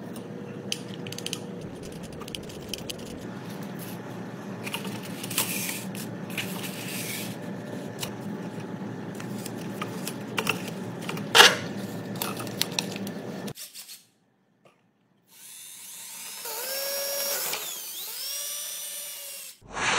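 A power drill boring into a wooden board: after a short silence the motor spins up, its pitch sagging and recovering as the bit bites and then easing off before it stops. Before that comes a steady low hum with scattered handling clicks and one sharp knock.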